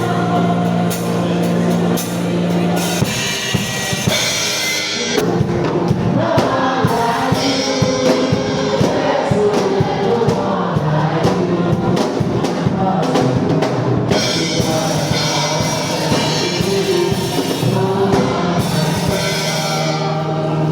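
Live gospel praise music with a choir singing and a drum kit. A held low bass or keyboard note opens it, a steady drum beat comes in about three seconds in and carries most of the way, and the held low note returns near the end.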